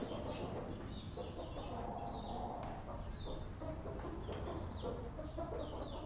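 Domestic hen clucking while her chicks peep, the peeps coming as repeated short, high, falling cheeps over the lower clucks.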